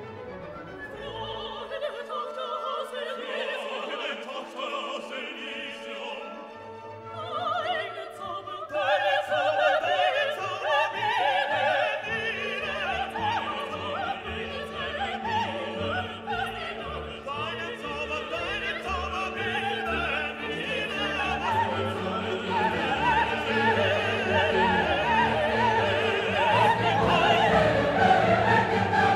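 Classical orchestral music with operatic singing, swelling louder about eight seconds in.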